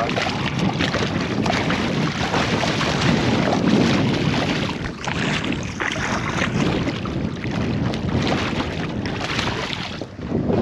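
Water splashing as a hooked conger eel thrashes at the surface alongside a small boat, with wind buffeting the microphone and scattered knocks.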